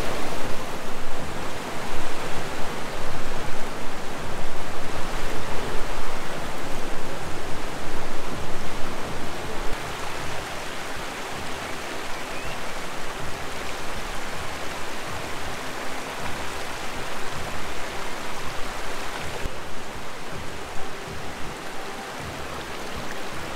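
Steady rush of a shallow mountain stream running fast over rocks. It is louder in the first half and eases a little after about ten seconds.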